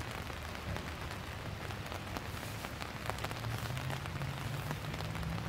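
Steady rain falling, with many single drops ticking close to the microphone, over a low steady rumble that strengthens a little after the middle.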